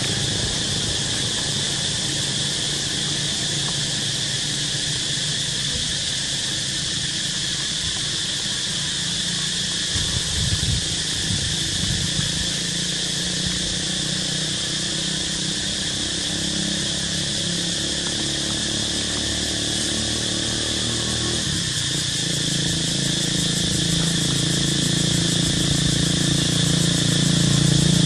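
Steady high-pitched drone of insects, with a low motor hum underneath that grows louder over the last few seconds.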